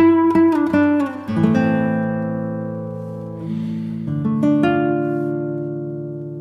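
Background music on acoustic guitar: quick plucked notes in the first second and a half, then held chords slowly fading, with a new chord plucked about four seconds in.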